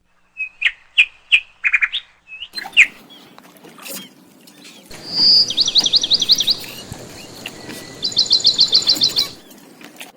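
Small birds chirping and trilling: a few short, high chirps in the first seconds, then two rapid, high trills of repeated rising notes, one about five seconds in and another near the end.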